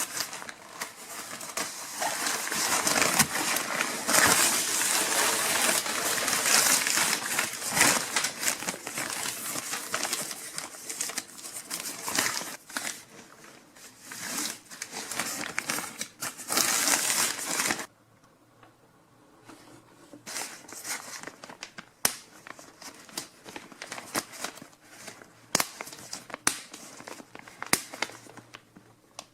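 Thin plastic rain poncho crinkling and rustling as it is handled, dense for about the first two thirds, then dropping off suddenly to scattered faint crinkles and sharp clicks.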